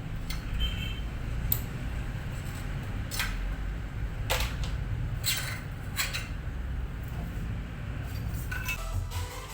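A handful of sharp clicks and scrapes of small metal tools or parts being handled, over a steady low rumble.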